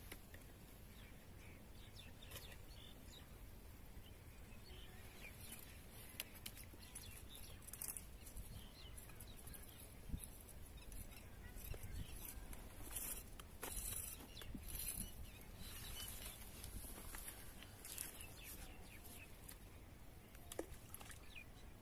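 Faint outdoor ambience: a low steady rumble with scattered faint high clicks and chirps, a little busier about halfway through.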